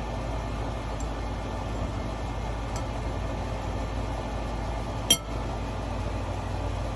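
One sharp clink of tableware about five seconds in, with a short ring, over a steady low room hum.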